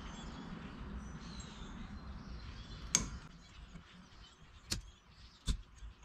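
A few sharp isolated clicks and taps, about three, four and a half and five and a half seconds in, from the metal hardware of a steering wheel quick release being worked on by hand. Quiet, over a faint low background.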